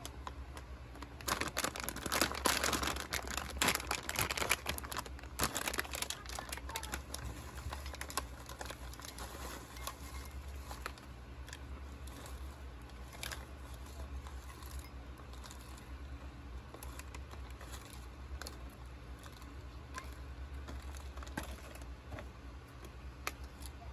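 Potato chip bag crinkling as it is handled and torn open, then chips poured from the bag into a bowl. The crackling is densest a second or two in and thins to scattered crackles after that.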